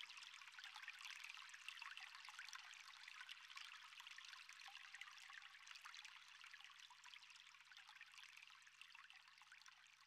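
Faint trickling water, a dense patter of tiny drips that slowly fades out.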